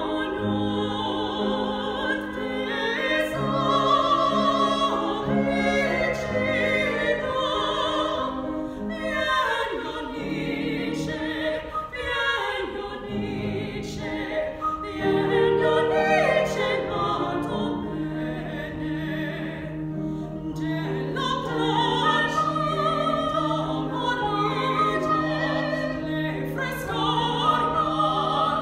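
Soprano and mezzo-soprano singing an operatic duet with vibrato, accompanied by a grand piano.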